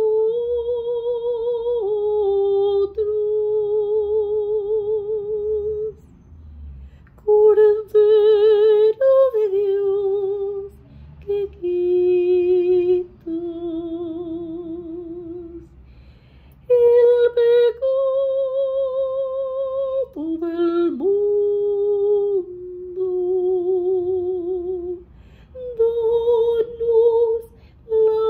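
A woman's classically trained solo voice singing long held notes with a wide, even vibrato, in phrases broken by short pauses for breath.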